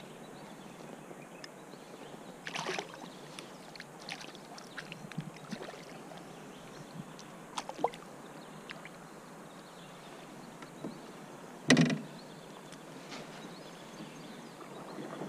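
Knocks and clatter in a canoe as a smallmouth bass is landed by hand: scattered light clicks, a brief splash as the fish thrashes at the surface, and one loud knock against the canoe about twelve seconds in.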